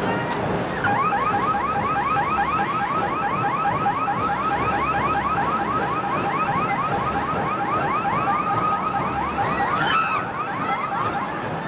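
Electronic warbling alarm siren: rapid rising sweeps, about six a second, at a steady pitch. It starts about a second in and stops shortly before the end.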